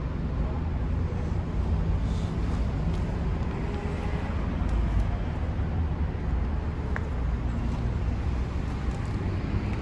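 Steady outdoor background rumble of road traffic.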